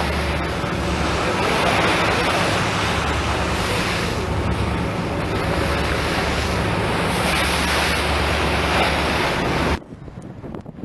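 Heavy wind buffeting the microphone over open-sea noise, with a steady low hum underneath. Near the end the sound drops off sharply to a much quieter hiss.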